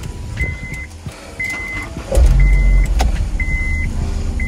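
A Honda S2000's four-cylinder engine starts about halfway through and runs on as a low rumble, while a short high dashboard warning chime beeps about once a second.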